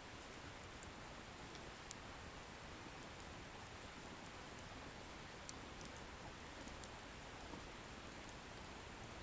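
Wood fire burning, faint: a soft steady hiss with scattered small crackles and ticks from the burning firewood.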